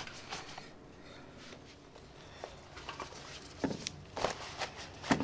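Large banana leaves rustling and crinkling as gloved hands press and smooth them into a clay pot: a scatter of short, soft rustles, louder and closer together in the second half.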